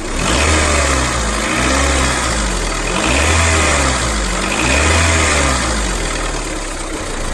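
Honda Civic LX four-cylinder engine revved up and down several times from idle, easing back near the end. The owner blames a strange noise under acceleration on a failed timing-belt tensioner.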